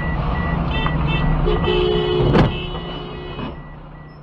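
A car striking the side of a bus, heard from inside the car: a single loud crunch of impact about halfway through, while a horn sounds for about two seconds around it. An electronic beeping repeats steadily about two and a half times a second throughout.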